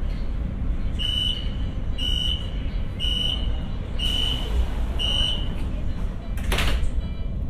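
Shanghai Metro Line 2 train's door-closing warning: five short high beeps about once a second, the signal that the doors are about to shut, over the low rumble of the standing train. A brief loud burst of noise follows about a second later.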